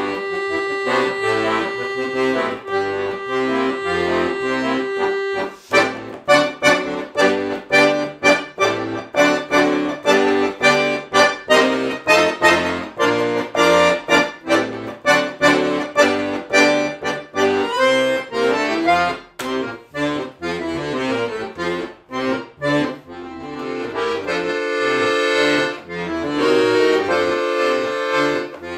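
Piano accordion playing solo. It holds a chord for the first five seconds or so, then plays quick, sharply accented short chords in a lively rhythm, and settles into longer sustained chords near the end.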